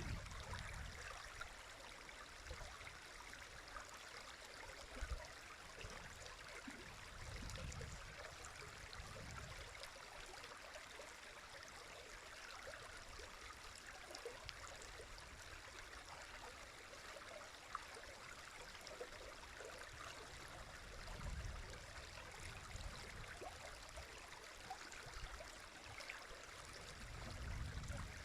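River running: a steady, faint rush of flowing water, with a few low rumbles now and then.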